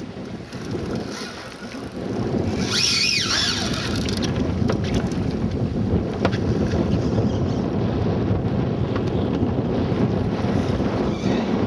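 Wind buffeting the microphone over the steady rumble of a boat at sea, getting louder about two seconds in. A brief wavering high whine sounds about three seconds in.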